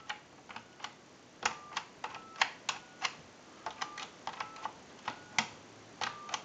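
Western Electric 2554 touch-tone wall phone keypad being dialed key by key through the digits in order. Each press gives a click down and a click up, with a short, faint two-tone touch-tone beep between them, about one key every 0.6 s.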